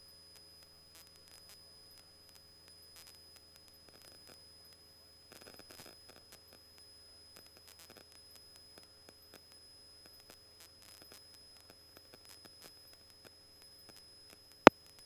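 Near silence on the radio audio feed: faint hiss with scattered tiny clicks, and one sharp click near the end.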